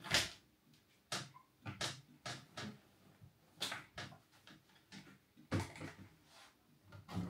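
Irregular knocks and clunks of household objects being handled, like a cupboard or door, about a dozen spread across the seconds, the loudest right at the start.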